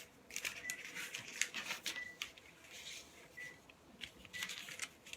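Calligraphy paper and tools being handled: light rustling and scratching with many small irregular clicks and taps, and a few brief high squeaks.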